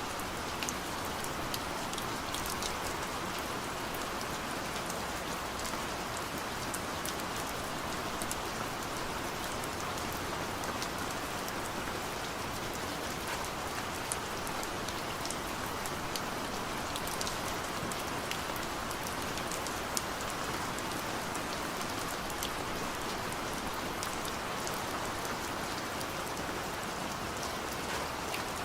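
Steady rain falling, an even hiss with many individual drops ticking.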